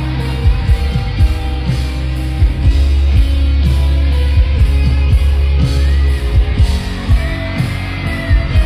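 Live rock band playing a song's instrumental intro loudly, with heavy bass and a steady drum beat.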